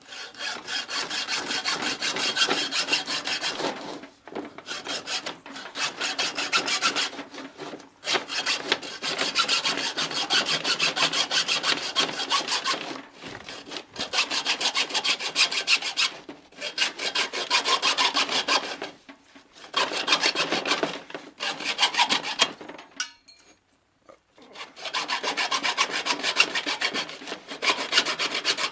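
Hacksaw cutting through half-inch copper pipe, a rapid back-and-forth rasp of the blade in several bouts with brief pauses between them, the longest pause about three-quarters of the way through.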